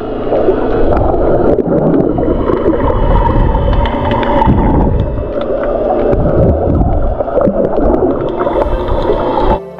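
Muffled underwater rumble and water movement picked up by a camera held beneath the surface while snorkeling. It cuts off suddenly just before the end.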